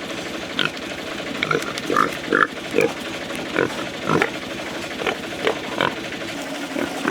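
Pigs grunting: a string of a dozen or so short grunts, one or two a second, over a steady low hum.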